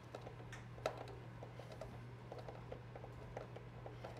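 Faint, irregular small clicks and ticks, several a second, from a hand screwdriver driving a screw through a metal figure-eight tabletop fastener into wood; one click about a second in is a little louder.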